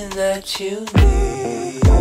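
Pop song with a sung vocal line over a deep bass beat that hits about a second in and again near the end.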